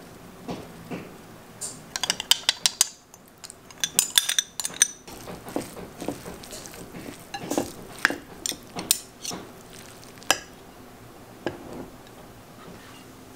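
A metal serving spoon clinks and scrapes against a ceramic bowl as tabbouleh is stirred and tossed. The clinks start about two seconds in and come thick and fast for a few seconds, then thin out into scattered clinks.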